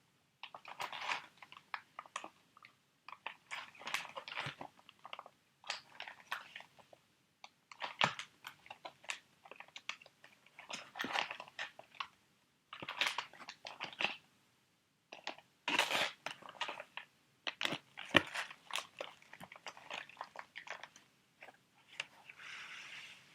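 Crinkly sheet-mask packets being handled: short, irregular bursts of crackling and clicking with brief pauses between them.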